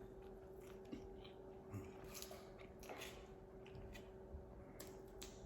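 Faint chewing: a person eating, with small scattered mouth clicks over a steady faint hum.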